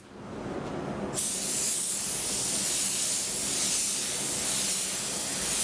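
Gravity-feed paint spray gun with a 1.6 nozzle, its air pressure dropped to 1 bar, spraying a light-to-medium first coat of high-build surfacer: a steady loud air hiss that comes on strongly about a second in.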